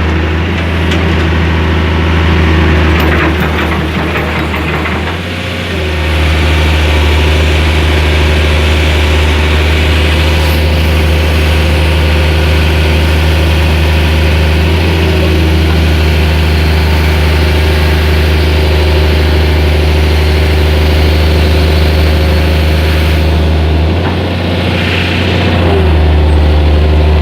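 Diesel engine of a piece of heavy equipment running steadily. Its note shifts briefly about five seconds in and again near the end.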